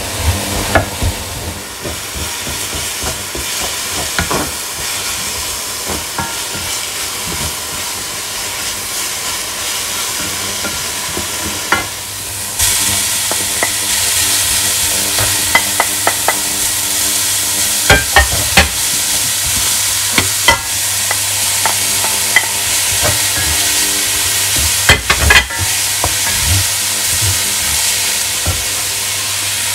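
Chopped vegetables frying in oil in a stainless steel pan, sizzling steadily while a spatula stirs and scrapes them. The sizzle gets suddenly louder about halfway through, and in the second half the spatula knocks sharply against the pan several times.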